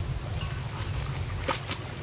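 Muddy water sloshing and splashing as water buffaloes wade and feed in it, with a few sharp splashes about one and a half seconds in, over a steady low rumble.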